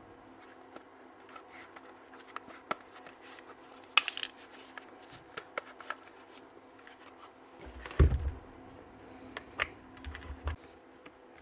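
Power-drill parts being handled and fitted together on a workbench: scattered light clicks and scrapes of plastic and metal, a sharper knock about four seconds in and a heavier knock with a dull thud about eight seconds in.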